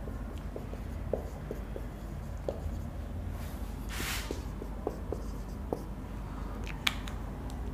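Marker pen writing on a whiteboard: a string of small taps and short strokes as letters are formed, with one longer, louder stroke about four seconds in. A low steady hum sits underneath.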